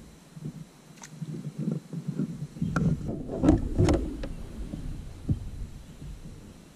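Knocks, clunks and rattles of gear being handled against a plastic kayak hull, with several sharp clicks, busiest in the middle and then dying away.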